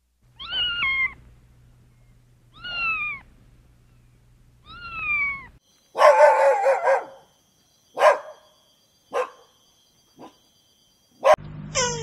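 A cat meowing three times, each meow a short call that falls in pitch, about two seconds apart; then a dog barking: a quick run of barks, followed by single barks about a second apart.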